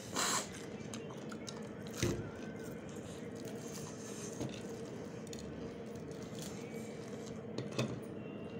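Biting and chewing of crisp fried pakoras, eaten quickly by hand, with a crunchy burst just after the start and a couple of sharp clicks, one about two seconds in and one near the end, over a faint steady hum.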